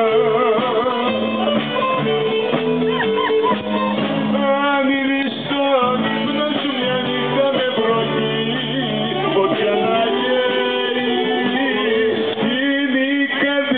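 Live Greek music: a man sings into a microphone, his voice wavering on long held notes, over strummed acoustic guitar accompaniment.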